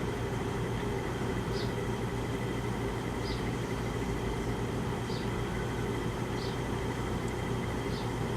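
Bedroom air conditioner running with a steady hum and whoosh of air while its compressor is off, so the unit is not cooling. A faint high chirp repeats about every second and a half.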